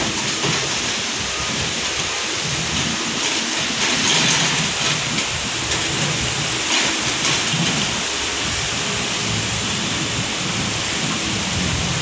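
Excavator engine running, a low uneven rumble under a steady rushing hiss.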